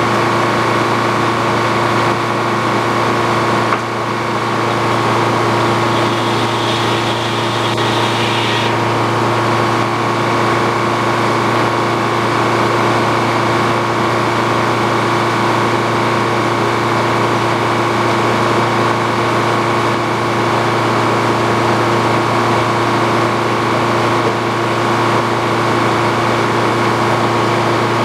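Old Frick sawmill running steadily, its machinery giving a constant multi-pitched hum, with a higher-pitched whine added for a few seconds about six seconds in.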